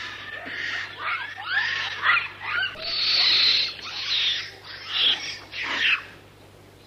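Macaque monkeys calling: a rapid run of short high squeals and chirps that swoop up and down in pitch, with a harsher, longer scream about three seconds in.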